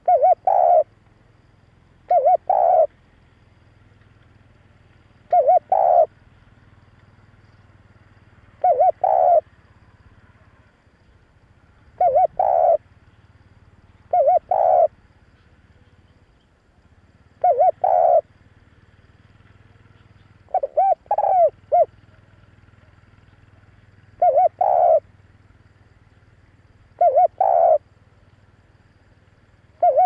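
Spotted dove cooing: short phrases of two or three quick coo notes, repeated about every three seconds, with one longer phrase of more notes a little past the middle.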